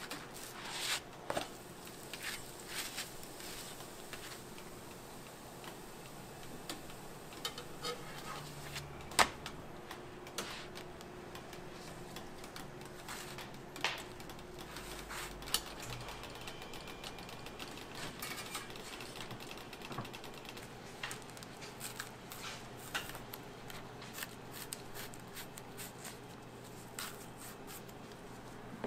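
Metal crepe spatula scraping and tapping on a round crepe griddle as a thin crepe is loosened and folded, with scattered light clicks and one sharp knock about nine seconds in.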